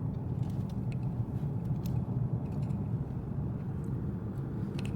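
A car being driven, with a steady low rumble of engine and road noise and a few faint ticks over it.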